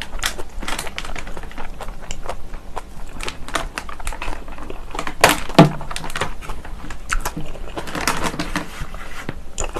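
Close-miked chewing of kimchi and rice: wet crunching and many small clicks from the mouth. About five seconds in there is one louder sound that drops quickly in pitch.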